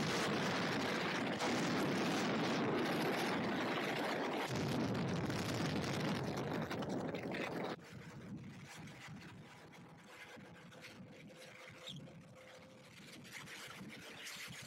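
Steady loud rush of wind and snowmobile engine noise on a sled travelling across the sea ice. It cuts off abruptly about eight seconds in, leaving a much quieter stretch with a faint steady hum.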